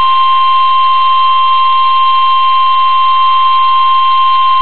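NOAA Weather Radio warning alarm tone: a single loud, unbroken tone near 1050 Hz with the hiss of the radio stream behind it, sounding the alert that a warning broadcast is about to follow.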